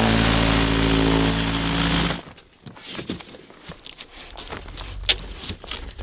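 Cordless reciprocating saw running steadily as it cuts through rigid EPS foam insulation board, cutting off suddenly about two seconds in. A few faint knocks of handling follow.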